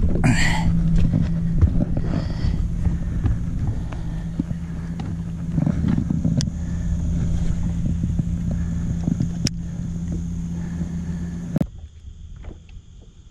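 Fishing boat's motor running steadily as the aluminium boat moves along, with water rushing past the hull. It cuts off suddenly about 11.5 seconds in, leaving a faint, steady, high insect buzz.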